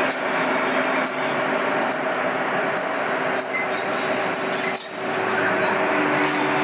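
EL2 electric mining locomotive and its coal train running past close by: a steady running noise with a thin high whine throughout. The sound dips briefly about five seconds in.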